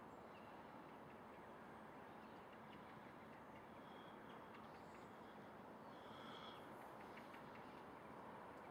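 Near silence: faint outdoor background hiss, with a couple of brief, faint high chirps about four and six seconds in.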